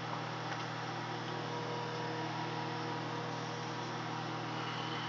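Microwave oven running while it heats a frozen dinner: a steady electrical hum that does not change.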